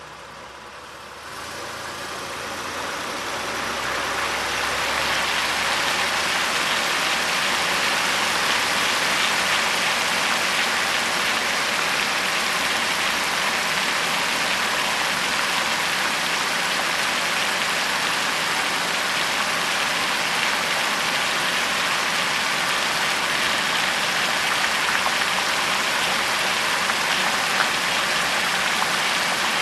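1991 Oldsmobile Cutlass on the move: a low engine hum gives way to road and wind noise that builds over the first few seconds as the car picks up speed, then holds steady at cruising speed.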